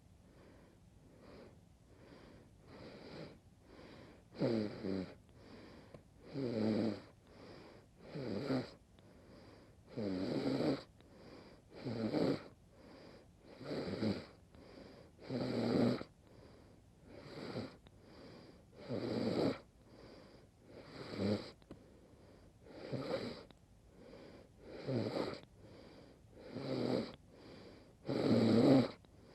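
A woman snoring in her sleep: a rough snore about every two seconds, with fainter breaths between. The snores are faint at first and grow louder after about four seconds.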